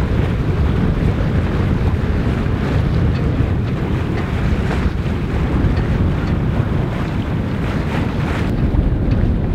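Wind buffeting the microphone on the bow of a moving sailboat, a steady low rumble, with the wash of sea water along the hull underneath.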